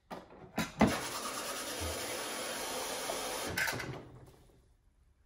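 Refrigerator door water dispenser running into a glass jar: a click near the start, about three seconds of steady pouring water, then another click as the flow stops.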